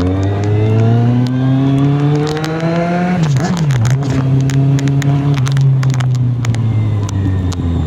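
Kawasaki Z750 inline-four engine under way: it accelerates with rising pitch for about three seconds, a gear change about three seconds in drops the revs, then it holds a steady speed. Frequent sharp crackles run over the engine sound.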